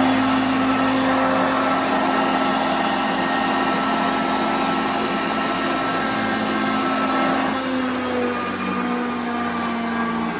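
Hoover Concept upright vacuum cleaner running steadily over carpet: a motor whine over a rushing of air. About eight seconds in, the pitch dips slightly and the rushing eases.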